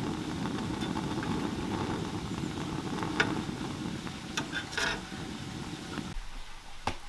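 Cast-iron ring gas burner burning steadily with a low rushing sound while a lump of charcoal is lit in its flames, with a few light clicks of the metal tongs against the charcoal and burner. The burner sound cuts off suddenly about six seconds in.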